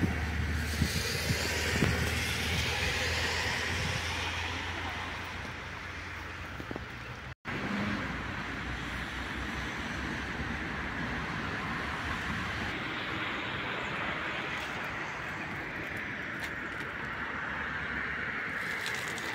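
Steady outdoor road-traffic noise with wind on the microphone. A deeper rumble runs for the first few seconds, and the sound drops out for an instant about seven seconds in.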